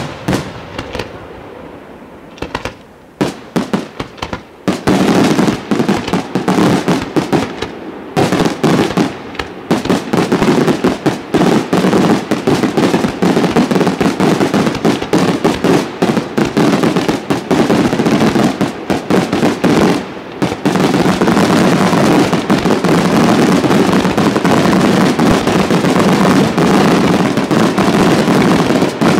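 Aerial firework shells bursting: a few separate bangs at first, then from about five seconds in a dense, almost unbroken barrage of rapid bangs, with short breaks near eight and twenty seconds.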